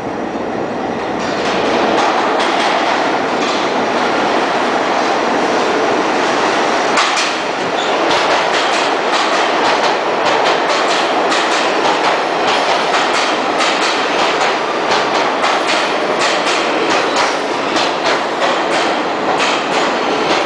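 New York City subway train running into and through an underground station: a steady rumble of steel wheels on rail that swells about two seconds in. From about seven seconds in, the wheels clatter over rail joints in quick clicks.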